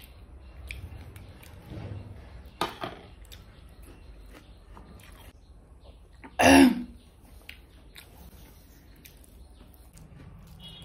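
Quiet eating sounds: chewing and fingers working rice on a steel plate, with a few small clicks and clinks. About six and a half seconds in comes one short, loud throat-clearing cough.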